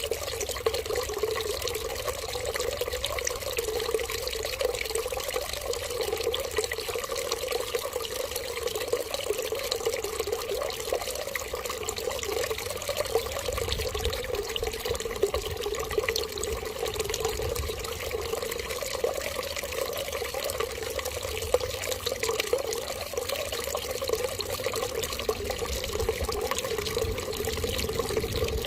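Water running steadily in a continuous stream, without pauses.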